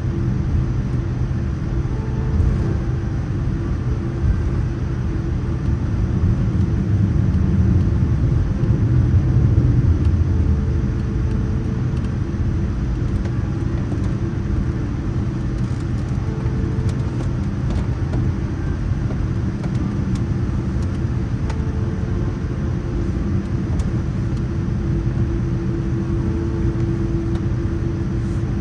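Cabin noise of a Boeing 787-9 taxiing after landing: a steady low rumble of the idling engines and rolling wheels under a faint steady hum. It swells louder from about six to ten seconds in, then settles back.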